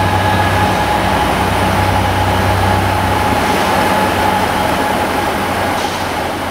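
Class 67 diesel locomotive's EMD 710 V12 two-stroke engine working under power as it pulls away: a steady low drone with a whine above it. The drone thins about halfway through and the sound grows fainter toward the end as the locomotive draws away.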